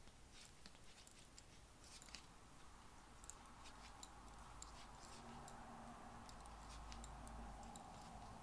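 Faint, sparse clicks of Addi FlexiFlips knitting needles tapping together as stitches are knit, mostly in the first half.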